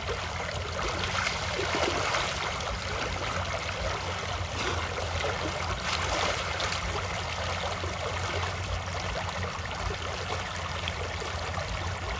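Shallow floodwater running fast over a rice-field bank, a steady rushing, with hands splashing in the current around the middle.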